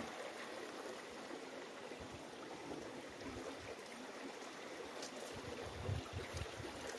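Steady, even rushing noise with a water-like hiss and no clear pitch, with a few faint low thumps in the last couple of seconds.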